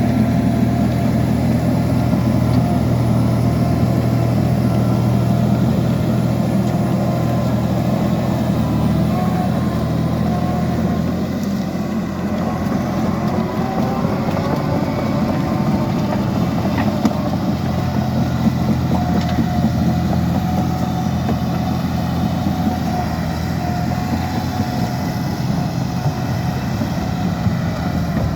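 Liebherr PR 754 crawler dozer's diesel engine running steadily, its low drone easing off a little about twelve seconds in.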